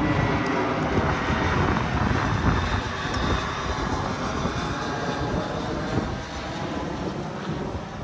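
Airliner flying overhead: its engines are a steady rumble with a faint whine that slowly fades.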